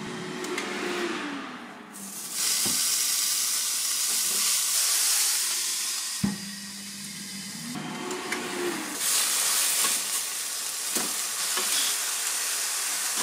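Minced-beef patties sizzling on the hot grill grate of a CHEFREE AFG01 electric grill set to 240 °C. The sizzle comes in two long stretches, broken near the middle by a sharp knock and a few seconds of the appliance's steady low hum, with another knock later on.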